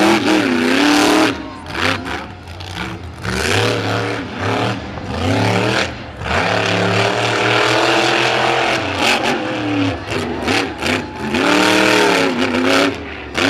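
Monster truck engine revving hard, its pitch climbing and falling again and again as the throttle is worked, with a couple of brief lifts off the throttle.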